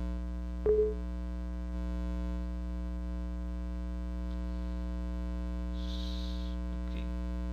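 Steady electrical mains hum, a buzz with many evenly spaced overtones. A single sharp click with a short tone comes about a second in, and a brief soft hiss about six seconds in.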